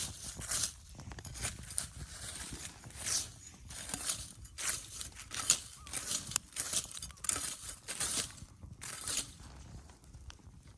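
Footsteps crunching on the ground: irregular crunching and rustling, about one to two a second.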